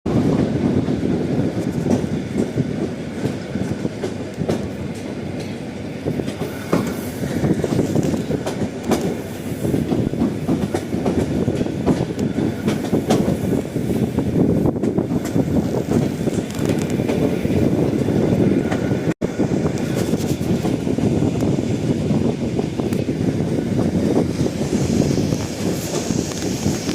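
Train running on the rails: a continuous rumble with the wheels clattering irregularly over rail joints. The sound cuts out for an instant about 19 seconds in.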